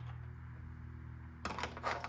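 Ratchet clicking as a 10 mm bolt is turned out, a quick run of clicks starting about one and a half seconds in, over a steady low hum.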